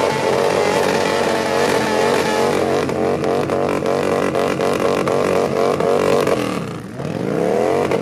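Sport motorcycle engine revved hard and held at high revs in a burnout on dirt, its pitch wavering and bouncing. About seven seconds in the revs drop briefly, then climb again.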